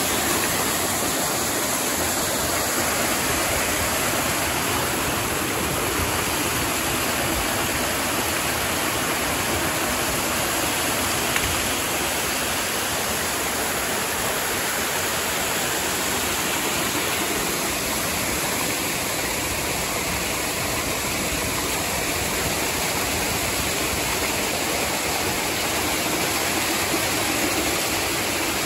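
Creek water pouring down a small waterfall over rocks, making a steady, unbroken rushing noise.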